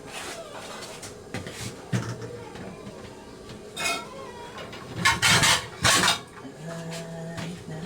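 Kitchen utensils and cookware clinking and clattering in a series of separate knocks, the loudest a cluster about five to six seconds in.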